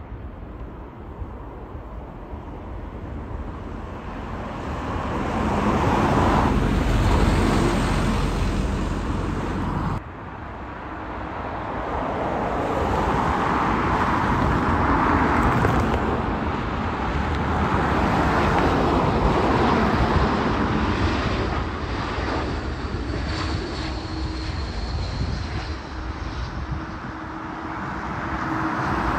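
Jet airliner engines: an Airbus A320 on the runway, its roar building to a peak and then cutting off suddenly, followed by another Airbus airliner approaching to land, its jet noise swelling, holding loud for several seconds and easing, with a faint high whine near the end.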